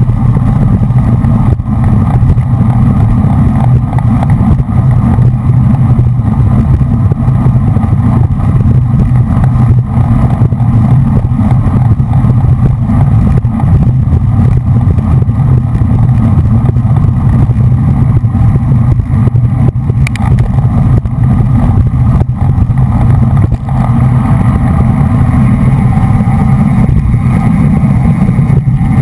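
Loud, steady wind rumble buffeting a GoPro's microphone on a racing bicycle moving at speed, mixed with hiss from the tyres on the road.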